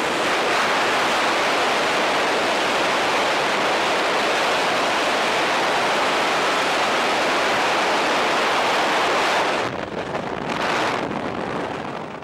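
Loud steady rush of freefall wind buffeting the microphone during a tandem skydive. Nearly ten seconds in it drops off sharply and turns uneven as the parachute opens, then tails away near the end.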